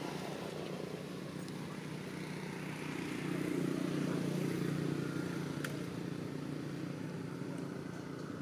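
A steady, low engine hum from a motor vehicle, growing louder about three seconds in and easing off again, with one short click a little past halfway.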